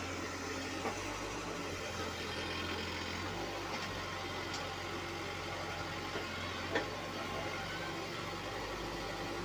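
Backhoe loader's diesel engine running steadily, heard from inside a machine's cab, with a few faint clicks.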